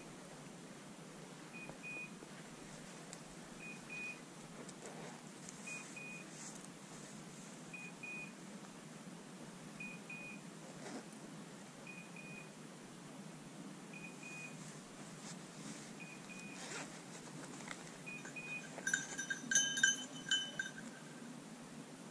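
Dog's beeper collar giving short double beeps at one high pitch about every two seconds, the fast rhythm such a collar gives when a setter is holding a point. A few faint crackles of brush, and near the end a louder steady tone of several pitches lasting about two seconds.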